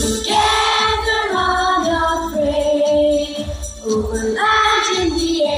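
A choir of children singing a school song together over instrumental accompaniment with a steady beat, about two beats a second.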